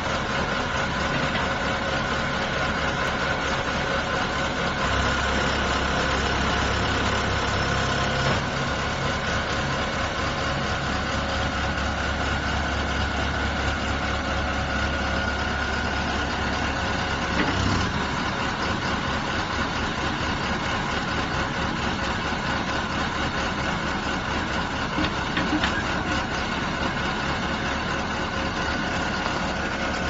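Backhoe loader's diesel engine running steadily while the rear backhoe arm is worked. Its low rumble grows louder from about five seconds in, then drops back with a brief knock near eighteen seconds.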